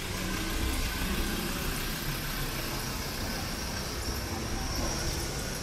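Street traffic: a car engine running close by, with steady street noise. A faint high whine is heard in the second half.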